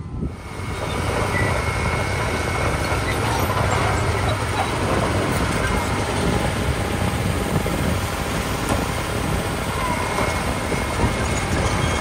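Crawler bulldozer's diesel engine running steadily, coming in about a second in.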